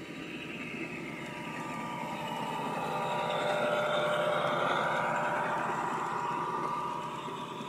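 G-scale model diesel locomotive hauling freight cars running along the garden railway track. A steady running noise swells as the train passes, loudest about halfway through, and eases off near the end.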